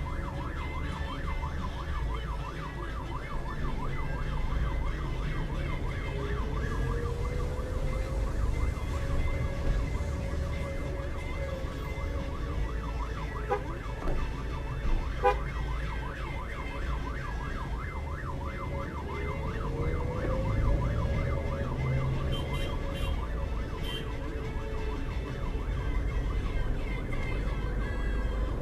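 Aftermarket electronic siren on a private car, sounding a rapid warble throughout, with two slower rising wails, about a quarter of the way in and two-thirds of the way in, over steady road and engine rumble.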